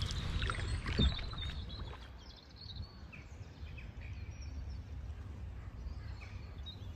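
Quiet river ambience: a steady low rumble with faint, scattered bird chirps, and a single knock about a second in.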